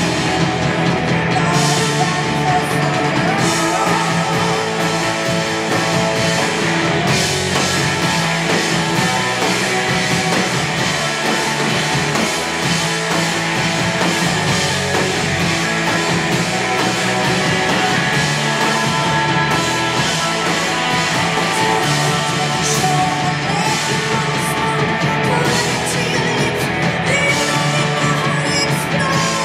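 Punk rock band playing loud and steady on stage, with electric guitars, drums and singing.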